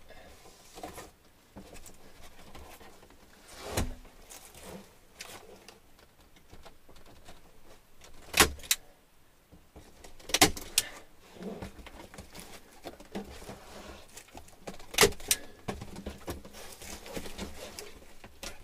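Manual staple gun firing staples into ceiling material: a sharp snap every few seconds, twice in quick pairs, with quieter handling rustles between.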